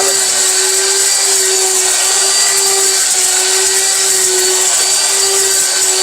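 High-speed 1500-watt electric mixer grinder running flat out, its blade grinding dry whole spices to powder. It gives a loud, steady whine with a constant hum.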